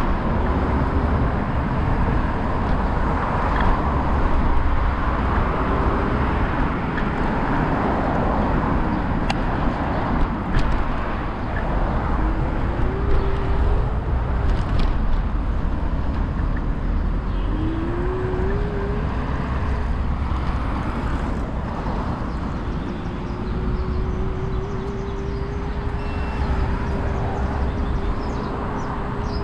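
Outdoor road traffic noise with a steady low rumble, and a faint wavering tone that comes and goes, held longer near the end.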